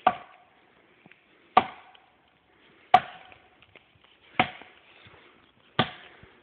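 Axe chopping into a tree trunk: five hard strikes, one about every second and a half.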